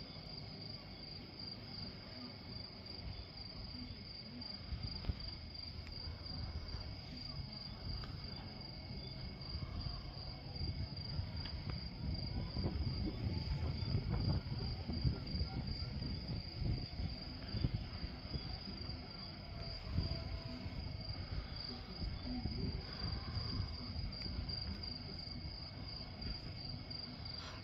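Crickets chirping steadily in a fast, even trill, over an irregular low rumble that swells to its loudest about halfway through.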